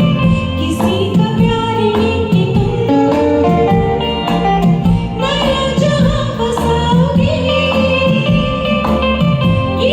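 Karaoke backing track of a Hindi film song playing, with a woman singing along over it.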